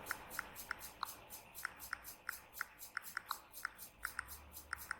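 Keypress clicks from an Android phone's on-screen keyboard as a search is typed: a quick, irregular run of short, high ticks, about twenty in all.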